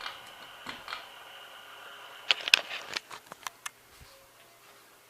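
Halsey Hugger ceiling fan starting up on low speed. A steady high whine runs with light ticking for about two seconds, then a quick cluster of sharp clicks and rattles follows before it settles quieter.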